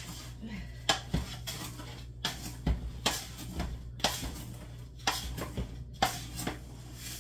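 Wooden spoon stirring dry powdered drink mix in a large aluminium stockpot: rhythmic gritty scraping strokes about once a second, some ending in a knock of the spoon against the pot.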